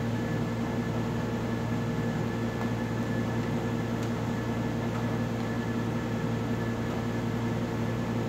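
Steady electrical mains hum with a low buzz and hiss underneath, with a faint click about four seconds in.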